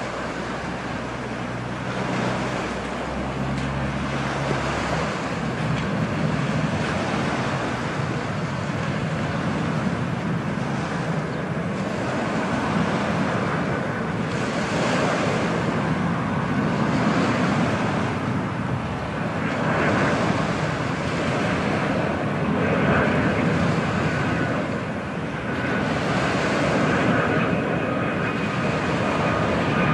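Boeing 757 jet engines on final approach, a steady rushing noise growing gradually louder as the airliner nears, with thin whining tones coming in about halfway through. Wind buffets the microphone.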